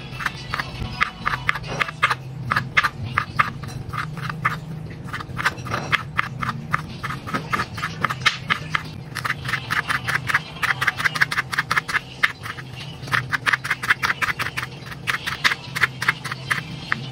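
Kitchen knife cutting food on a plastic cutting board: a rapid run of sharp clicks as the blade strikes the board with each slice, with short pauses between runs.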